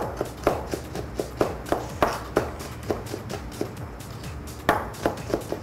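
Chef's knife chopping capers and onion on a cutting board: sharp knocks of the blade on the board at an uneven pace, two or three a second, with a short pause about four seconds in. Background music plays underneath.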